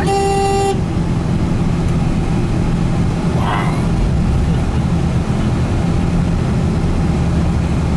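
Steady low drone of a vehicle's engine and road noise, heard from inside while driving. A single short horn honk sounds right at the start.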